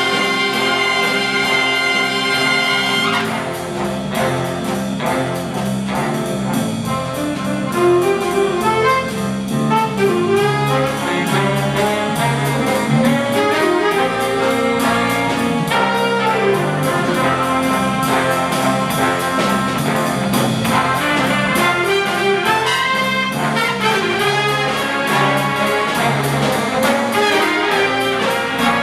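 Big band playing a jazz arrangement live, with trumpets, trombones and saxophones over piano, drums and bass. A held ensemble chord for about the first three seconds gives way to a rhythmic passage with moving horn lines.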